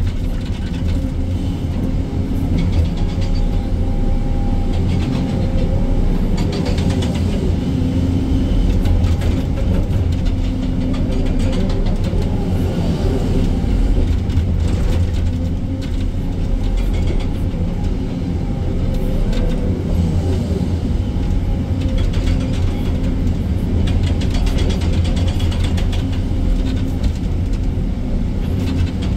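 Excavator's diesel engine and hydraulics running steadily under working load.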